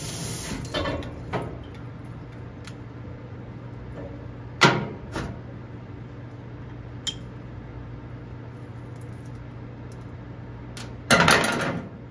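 Metal tools and parts clanking on a stainless steel sink counter: a few sharp knocks, the loudest about four and a half seconds in, and a longer clatter near the end. The hiss of the faucet spray stops at the very start.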